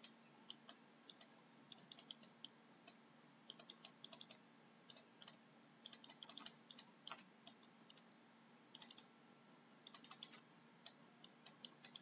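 Faint, irregular light clicks and taps of a stylus on a tablet during handwriting, several a second in quick clusters, over a steady low electrical hum.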